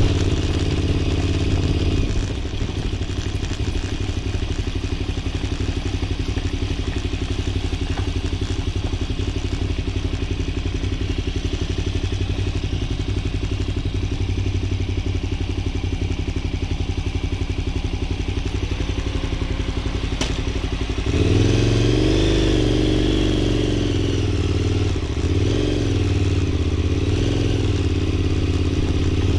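KTM 990 Super Duke's 999 cc V-twin engine running steadily at low revs. About two-thirds of the way through it gets louder and its pitch rises and falls several times as the throttle is opened and closed.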